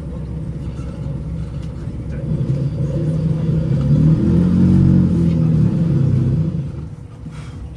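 Diesel engine of a KTR8000 railcar, heard from inside the passenger car. Its low hum swells for a few seconds and then drops back to idle about seven seconds in.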